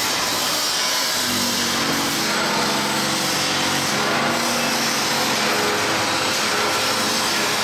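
Grinding head of a PNMD-1400 blade sharpening machine running, its grinding wheel grinding the edge of a straight plastic-crusher knife: a steady grinding hiss over the motor's hum.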